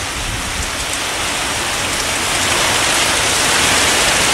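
Heavy monsoon rain pouring down onto a flooded river, a dense, steady hiss that grows steadily louder as the downpour strengthens.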